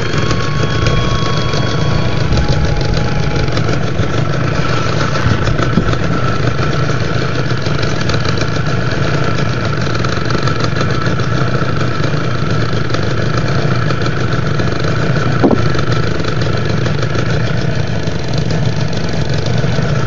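Boat's outboard motor idling steadily.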